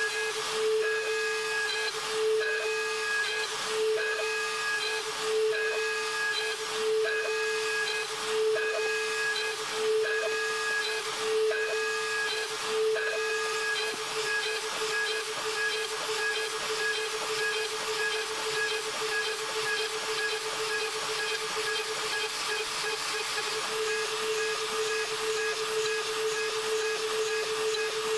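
Mafell FM 1000 router running as the spindle of a DIY CNC router, its end mill cutting 5083 aluminium: a steady high whine over a hiss. The cutting pulses about every second and a half for roughly the first half, then runs steady.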